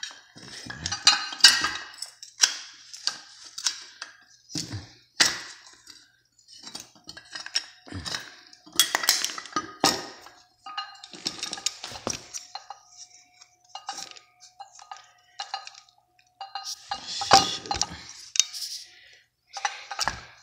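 Metal hand tools clinking and scraping against a Bosch alternator's case as it is pried apart, in an irregular run of sharp clinks and short scrapes.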